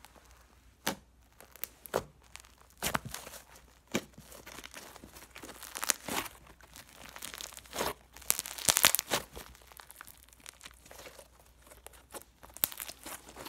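Red slime being poked, squeezed and stretched apart by hand, giving irregular sticky clicks and crackles, with a dense, louder run of crackling about eight seconds in.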